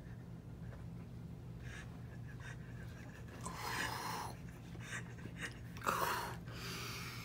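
A man breathing hard after swallowing a nasty drink, with a long heavy breath about three and a half seconds in and two more near the end, the loudest starting sharply at about six seconds.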